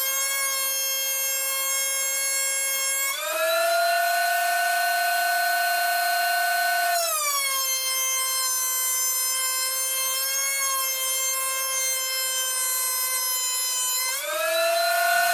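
Benchtop thickness planer running with a steady high electric-motor whine as a board of old decking is fed through it. The pitch steps up about three seconds in, drops back about seven seconds in, and steps up again near the end.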